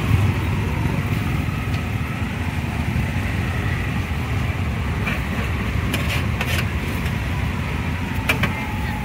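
Steady low rumble of passing street traffic and motorbikes, with a few light clicks of a metal spatula against the wok about six and eight seconds in.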